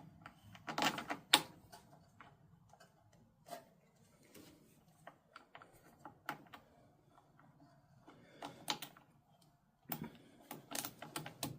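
Scattered sharp clicks and taps of small metal hardware and hand tools being handled while battery cables are bolted onto a mower battery, in short clusters with quiet gaps between, the loudest about a second in.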